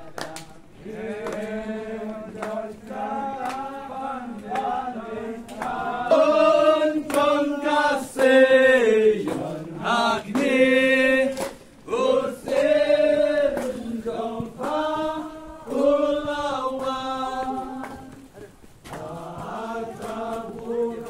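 A group of voices singing together in long sung phrases, with a short pause near the end before the singing resumes.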